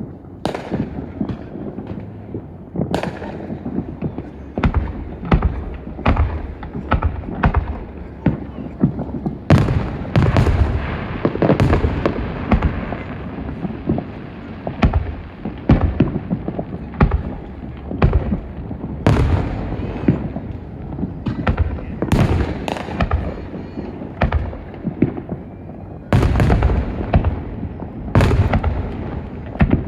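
Fireworks exploding in a dense, unbroken string of booms and sharp bangs, several a second at times, with heavier clusters of bursts running together.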